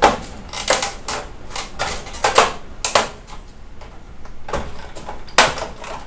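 Sharp plastic clicks and snaps at irregular intervals as a spatula pries the cover off a microwave oven door and its clips pop loose.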